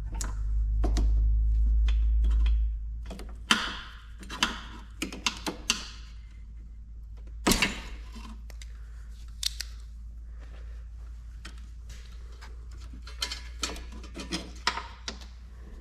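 Clicks and light knocks of pliers and small metal engine parts being handled, in scattered clusters, with one louder knock about halfway through. A low rumble runs under the first few seconds, then stops.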